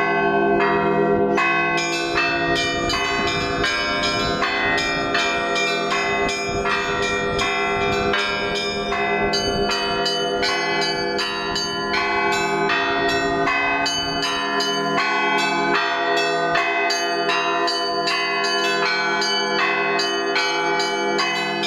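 Russian Orthodox church bells rung by a single bell ringer in a continuous festive peal. Small high bells are struck rapidly, several times a second, over the lingering hum of larger bells.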